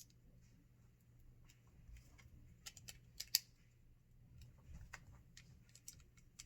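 Small plastic clicks and taps of LEGO pieces being handled and pressed onto a build, irregular, with the sharpest click a little over three seconds in.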